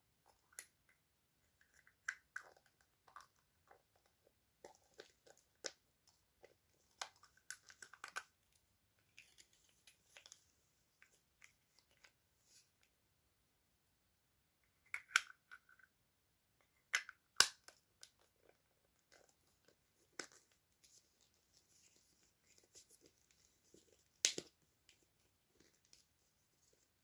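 Faint clicks, crinkles and rustles of fingers working at a small toy and its plastic, with a few sharper snaps in the second half.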